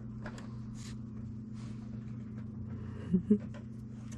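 Soft wet clicks of a cat licking a person's fingers over a steady low hum, with two short low sounds in quick succession about three seconds in.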